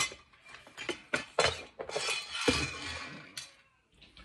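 Small stainless-steel parts tray being brought over and set down on a wooden workbench: a run of sharp metallic clinks and rattles, with a heavier clunk about halfway through.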